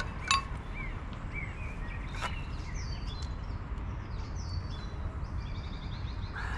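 Songbirds chirping and trilling over a steady low outdoor rumble. A sharp clink of tableware about a third of a second in, and a fainter knock about two seconds in.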